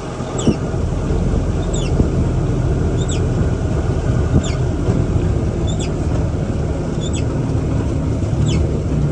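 Jeep running on the road, heard from inside the cabin as a steady low rumble. A short high falling chirp repeats about once a second over it.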